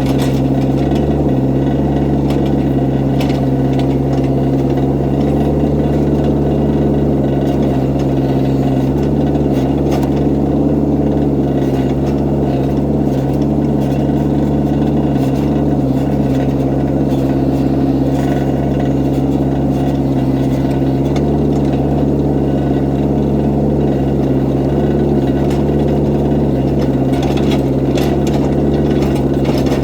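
Excavator's diesel engine running steadily, with a few light clicks and knocks, the clearest near the end.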